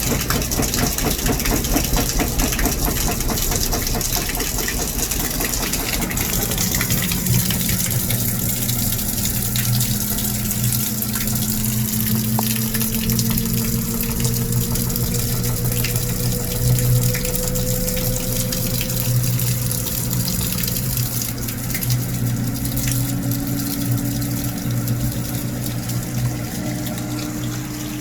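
Water running through plumbing pipes with a noise. For the first several seconds it has a fast rattling pulse. After that it becomes a steady hum, with a faint tone that slowly rises in pitch.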